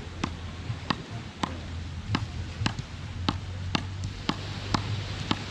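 Frescobol rally: wooden paddles striking a rubber ball back and forth, sharp clicks about twice a second, ten hits in all, over a steady background hiss.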